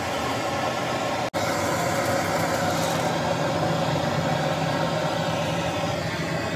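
A steady, engine-like mechanical hum with a continuous hiss over it, broken once by a brief dropout about a second in.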